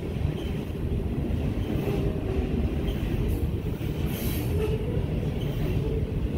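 Freight train's covered hopper cars rolling past, a steady rumble of steel wheels on rail with light clicks, and faint wheel squeals that come and go.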